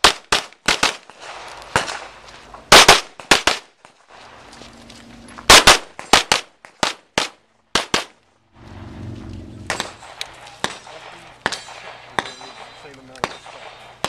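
Handgun shots fired in quick pairs and short rapid strings on a practical pistol stage. A little over halfway through the shooting breaks off, and after a brief low rumble there are fainter, more widely spaced shots.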